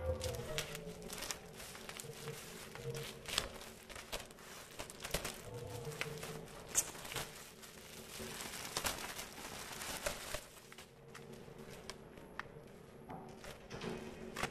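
A black plastic mailer bag wrapped in tape is torn open and crinkled by hand, its plastic crackling irregularly. The crinkling thins out over the last few seconds.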